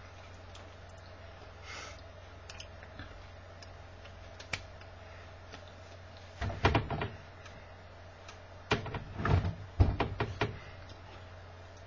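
Hands clapping, slapping and brushing against each other and the body while signing in ASL. These are short sharp knocks and rustles in two bunches, about six and a half seconds in and again from about nine seconds, over a steady low hum.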